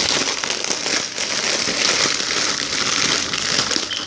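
Packaging crinkling and rustling as it is handled close by, a dense crackle of many small clicks.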